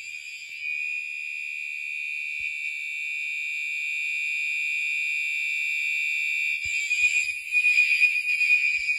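Gentex Commander 3 fire alarm horn sounding on its mechanical continuous tone at high volume: one steady, high-pitched horn blare that slowly grows louder, then turns harsher and louder in the last couple of seconds.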